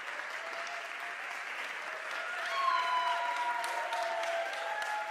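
Audience applauding, with a few voices calling out over the clapping.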